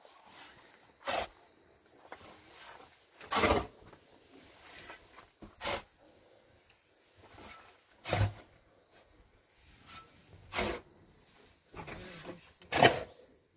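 Short scraping strokes, about six strong ones spaced a second or two apart with fainter ones between, typical of hand work on wall-building material.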